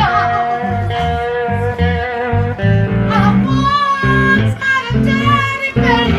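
Live blues played on amplified cigar box guitars over a steady, rhythmic low riff, with a long held note at the start and a woman singing from about halfway through.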